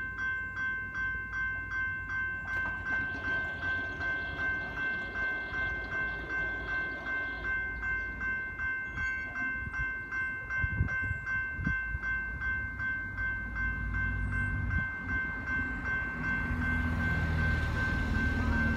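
Railway level-crossing warning bell ringing in an even beat of about two strokes a second, signalling an approaching train. Near the end the low rumble of the oncoming train rises underneath it.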